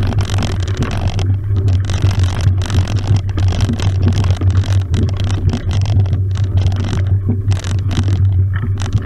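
Mountain bike rolling along a tarmac road, heard close to the front suspension fork: a steady low hum and rumble with constant small clicks and rattles from the bike.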